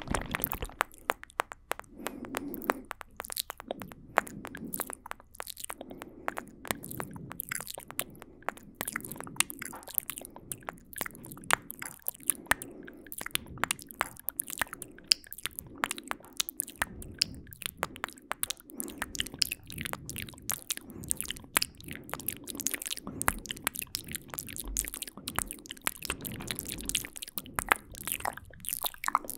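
Layered ASMR mouth sounds close to a fluffy-covered microphone: a dense, quick run of wet clicks and smacks from lips and tongue over a softer breathy layer.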